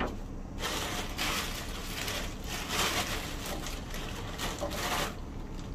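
Rustling and handling noise close to the microphone, coming in several swells for about four and a half seconds, then stopping.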